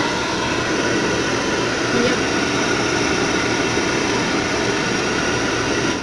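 NOVA NV-899 hand-held hair dryer running steadily, its fan blowing hot air in an even rush.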